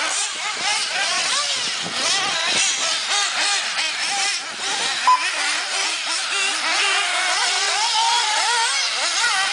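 Several 1/8-scale off-road RC buggies racing, their small nitro engines revving up and down over one another as they accelerate and brake around the track. A short high beep sounds about five seconds in.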